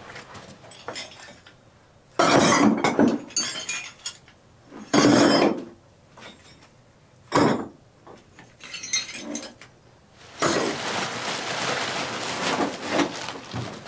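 Loose debris in a stone basement being cleared by hand: several short scraping, clinking bursts a few seconds apart, then a longer stretch of continuous scraping from about ten seconds in.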